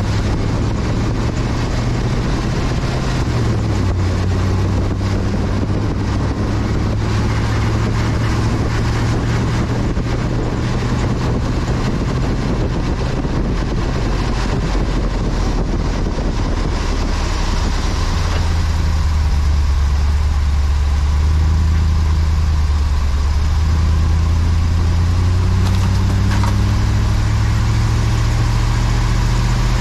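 2019 Chevy LCF 4500 diesel box truck driving, heard from underneath: a low engine and drivetrain drone under a steady rush of road and wind noise. The engine note dips a few seconds in, drops lower past the middle, then climbs steadily toward the end.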